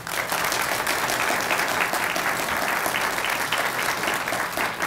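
Audience applauding, a steady round of clapping.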